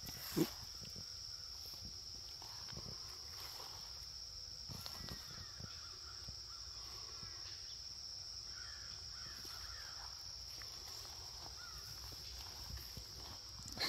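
Backyard ambience: a steady, high-pitched insect drone with scattered short bird chirps, mostly in the middle stretch. A brief bump comes about half a second in.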